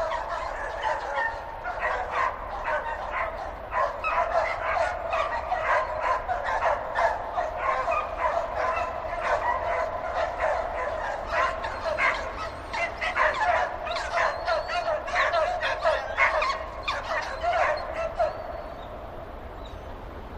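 Several dogs barking and yapping at once in quick, overlapping barks. The barking dies down over the last couple of seconds.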